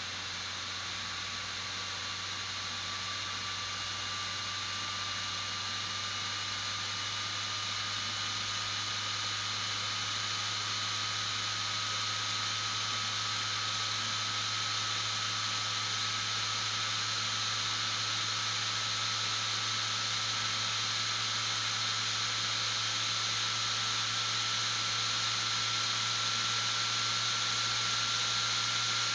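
Sony VAIO laptop cooling fan running: a steady airy hiss with a thin whine that slowly rises in pitch, getting gradually louder as the fan speeds up. A faint steady low hum lies underneath.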